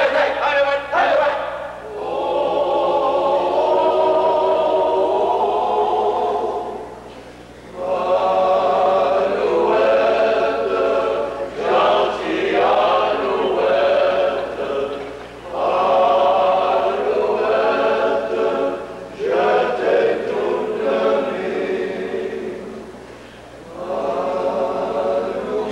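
Men's chorus singing together in sustained phrases of a few seconds each, with short breaths between the phrases.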